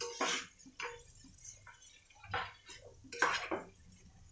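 A spatula stirring and scraping vermicelli and vegetables in a pan: several separate scrapes and knocks, the longest and loudest about three seconds in.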